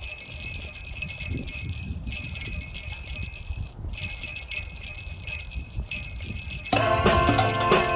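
Sleigh-bell jingling from an air drumstick, coming in four bursts of about two seconds each with short gaps between. Near the end, louder backing music with pitched notes and a bass line starts.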